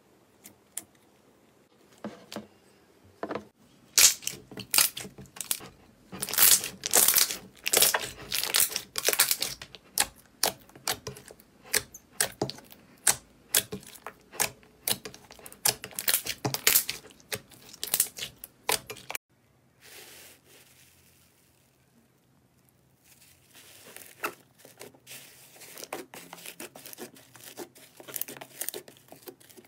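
Hands pressing and squishing thick, glossy slime, giving dense runs of sticky clicks and crackling pops as air is pushed through it. The crackling stops for a few seconds about two-thirds through, then starts again.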